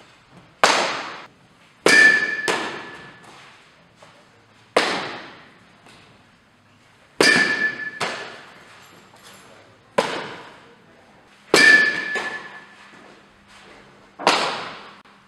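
About ten sharp smacks of a softball into a leather fielding glove and of thrown balls striking, every two to three seconds and sometimes in quick pairs. Each echoes in a large indoor training hall, and several carry a brief metallic ring.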